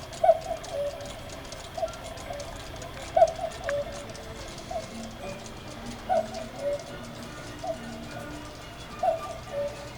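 Cuckoo clock calling 'cuck-oo' over and over, about every one and a half seconds, each call a higher note followed by a lower one from its two bellows-driven pipes.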